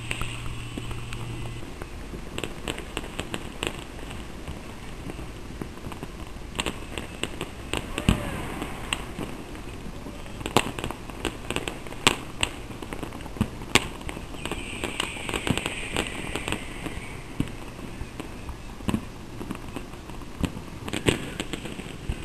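Fireworks and firecrackers going off: irregular sharp bangs and cracks, some close together, with several louder reports.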